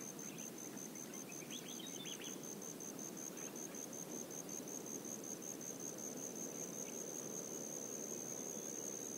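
Faint high-pitched insect call, a rapid pulsing that runs together into one steady continuous tone about halfway through, over a low steady background hiss.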